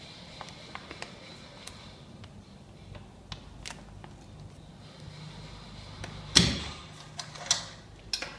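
Plastic pouch crinkling and ticking as it is handled. About six seconds in, a loud thump with a short ringing tail as the manual impulse sealer's arm is brought down onto its jaw, followed by a few sharp clicks.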